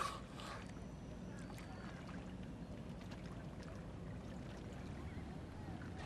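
A dolphin surfacing and blowing through its blowhole: one short, sharp exhale at the very start, followed by faint steady wind and water noise.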